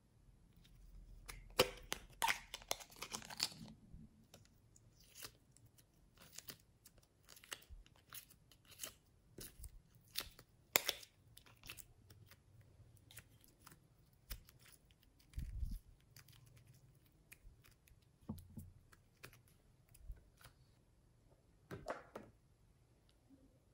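Soft modelling clay being peeled and pulled out of a plastic compartment case: a sticky tearing crackle with small clicks of the plastic, densest in the first few seconds, then scattered clicks and a couple of low thumps.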